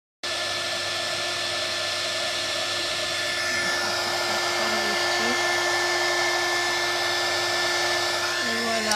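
Embossing heat gun blowing steadily, a loud hiss with a constant hum, melting grey embossing powder into a shiny raised finish. It cuts in abruptly just after the start and stops near the end.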